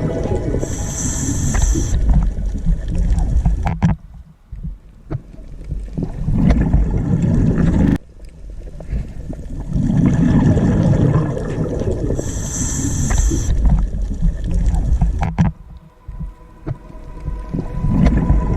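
Sea water sound, deep and low-pitched, rising and falling in surges. It drops away sharply twice and builds back up each time.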